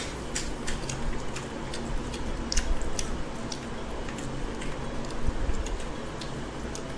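Eating by hand from stainless steel plates: scattered light, irregular clicks and taps of fingers, rice and chicken bones against the metal, over a steady low hum.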